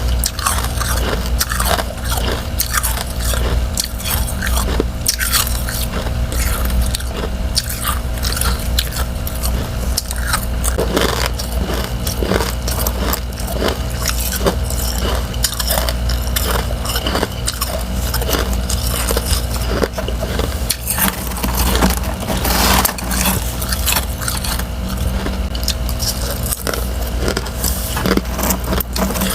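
Close-up biting and chewing of crunchy freezer frost: thin refrozen ice shell and powdery frost crackling between the teeth in dense, irregular crunches over a steady low hum.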